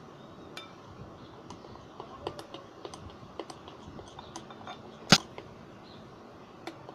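Scattered light clicks and taps of a utensil against a bowl while homemade slime is stirred, with one sharper click about five seconds in.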